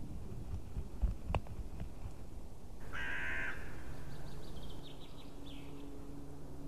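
Bird calls: one loud, harsh call about three seconds in, followed by a quieter run of rapid high notes that fall slightly. Two sharp knocks come just before, about a second in.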